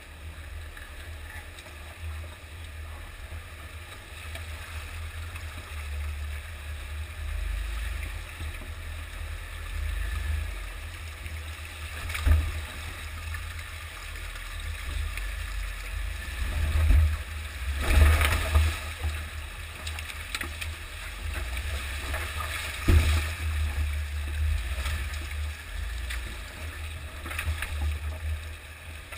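Jeep Wrangler JK crawling through a rocky creek: a steady low rumble with water splashing and gurgling around the tires. Sharp knocks come a few times, the loudest about two-thirds of the way through.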